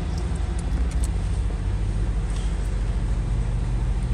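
Audi car idling, heard from inside the cabin: a steady low hum with a few light clicks near the start.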